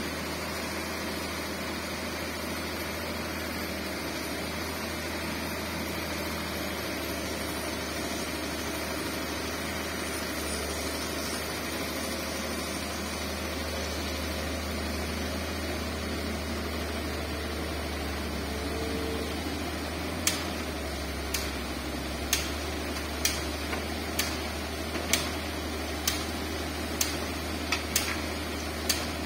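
Komatsu hydraulic excavator's diesel engine running with a steady low drone as it digs sand and loads a dump truck. About two-thirds of the way in, sharp ticks start and repeat about once a second.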